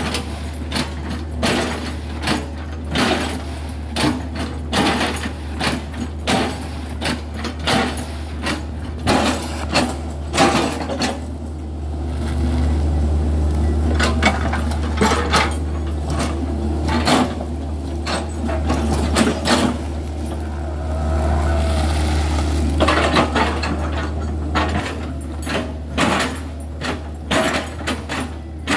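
Hitachi crawler excavator's diesel engine running steadily under load while its bucket chops into a felled oil palm trunk, with many sharp, irregular knocks and cracks as the bucket edge bites and splits the fibrous wood. The engine works harder in two stretches near the middle.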